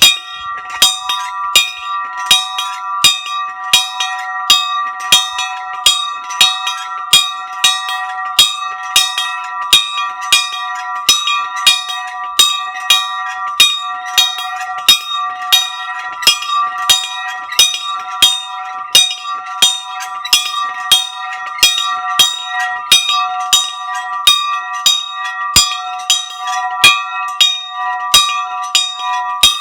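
A bell rung over and over in a steady rhythm, about two strikes a second, its ring carrying on between strokes. It is a call bell for meals and activities.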